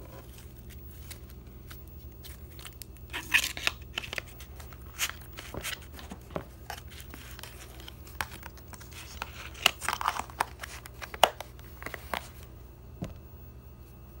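Blue stretchy slime being kneaded and pressed by hand, giving irregular sticky pops and crackles. They are busiest from about three seconds in until near the end.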